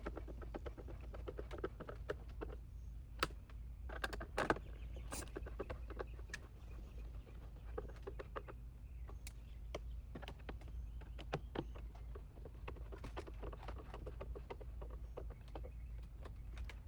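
Rapid, irregular clicking and tapping of a hand driver with a T25 Torx bit turning screws down into the plastic engine air box lid, screw after screw. A few louder knocks about three and four seconds in.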